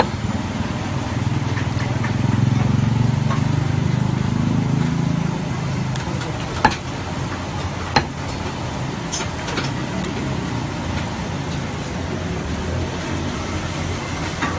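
Cleaver chopping fish on a wooden chopping block: two sharp knocks about a second apart past the middle, with fainter taps between, over a steady low rumble of background noise.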